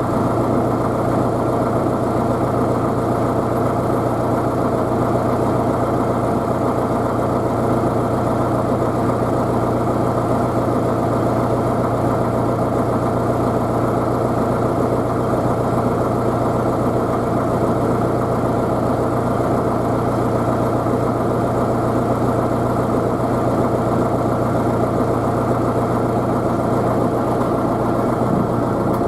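Tractor engine idling steadily, its pitch unchanging.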